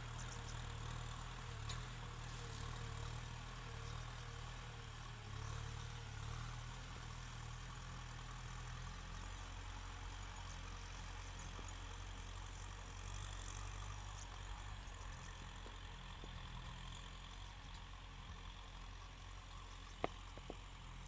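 Kubota tractor's diesel engine running steadily, a low hum that weakens about nine seconds in, with a sharp click near the end.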